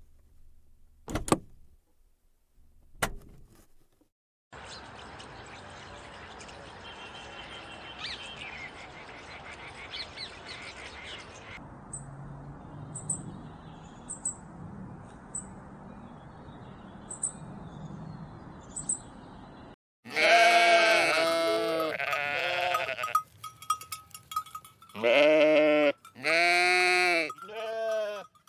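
A few sharp clicks, then a steady background hiss with faint high chirps. About two-thirds of the way in, a run of loud bleats from sheep or goats starts, each call arching in pitch.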